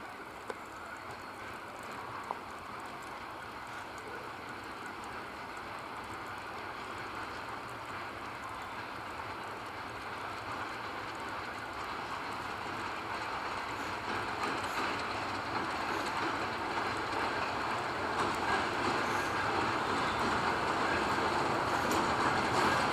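ChME3 diesel shunting locomotive pulling boxcars, its six-cylinder diesel engine and wheels on the rails running steadily, growing louder as it approaches.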